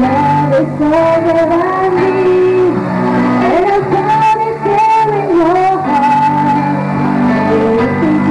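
Young women singing a melody into microphones over backing music, the voice gliding between held notes.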